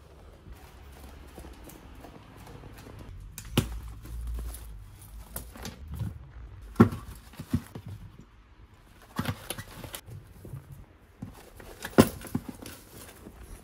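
Handling noise while getting ready: footsteps on a wooden floor, then scattered knocks, clicks and clatters as small objects are picked up from a plastic drawer cabinet and handled, with sharp knocks about three seconds in, seven seconds in and near the end.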